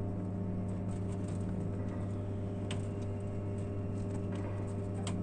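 Steady deep electrical hum, a low drone with a second tone an octave above it, with a few light metallic clicks from a steel operating handle being fitted into the earthing-switch socket of a ring main unit.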